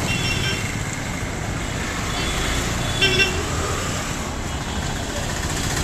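Busy street traffic, a steady low rumble of passing vehicles, with short high-pitched toots near the start, at about two seconds, and again, loudest, at about three seconds.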